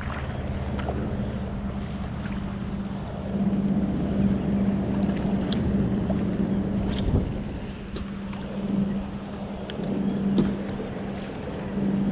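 A distant boat engine hums steadily, swelling and fading, over wind and water noise. A few light clicks come from the spinning rod and reel being handled.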